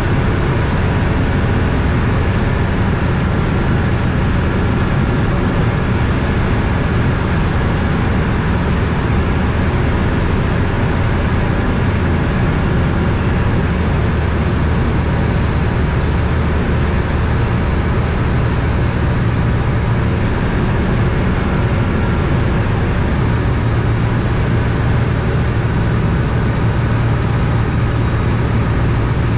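Ikarus C42 ultralight's Rotax engine and propeller running steadily in cruise, a loud drone with wind noise heard from inside the cockpit. The low engine note steps up slightly a little past halfway.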